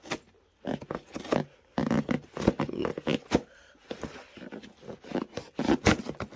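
Cardboard LEGO set box being slit open at its seal tabs with a pocket knife, heard as a run of irregular scraping and rustling strokes with short pauses.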